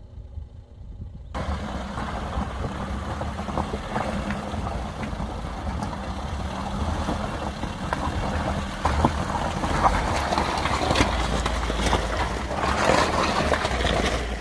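An SUV's engine running low as the vehicle creeps through shallow river water over a stony bed, with tyres crunching and splashing on the pebbles. The sound sets in about a second in and grows a little louder near the end.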